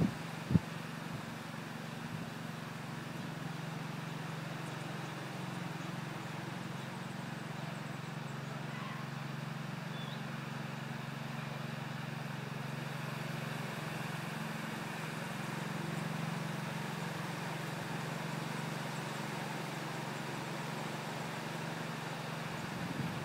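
Steady low motor hum, like a vehicle engine idling, with one short knock about half a second in.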